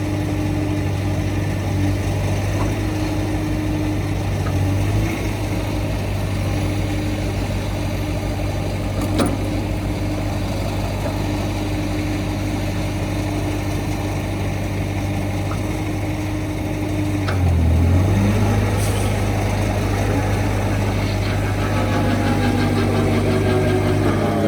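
Skid steer engine running steadily, driving a hydraulic articulating brush cutter attachment. About three quarters of the way through, the engine note dips briefly and recovers. Near the end, tones that rise and fall come in.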